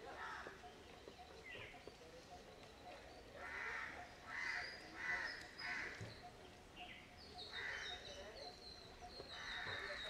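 Birds calling: a string of short cawing calls, four in quick succession about halfway through and more near the end, with a faster high chirping from a smaller bird over the last few seconds.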